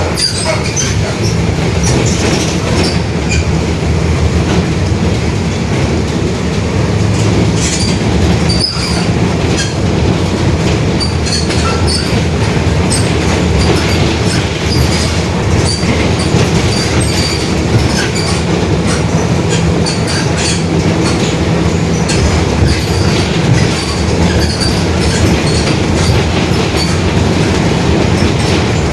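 Mercedes-Benz OF-1721 BlueTec 5 city bus under way: the engine and drivetrain run steadily with the differential growling, among frequent clicks and rattles.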